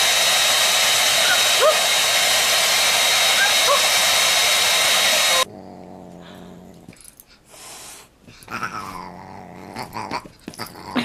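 Hand-held hair dryer running, a loud steady rush of air with two short rising cries over it, cutting off suddenly about five seconds in. After that come much quieter animal sounds: a dog growling and whining.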